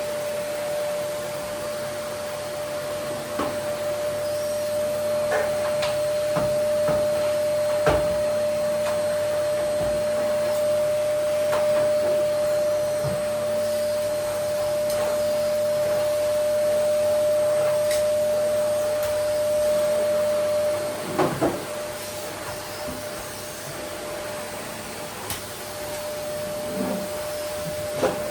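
Vacuum cleaner running steadily with a constant whine, broken by scattered clicks and knocks. About two thirds of the way through, two sharp knocks come close together and the whine drops away, coming back near the end.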